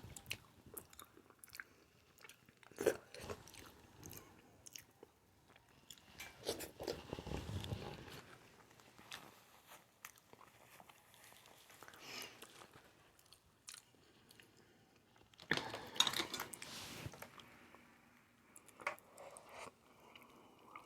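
Person eating a seafood boil: chewing and biting with crunchy clicks, in scattered bursts, the loudest about sixteen seconds in.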